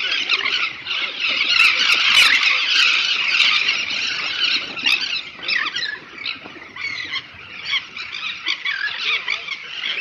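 A flushed colony of elegant terns calling as the flock lifts off the nesting mound: a dense chorus of many overlapping high calls, thinning out after about five seconds.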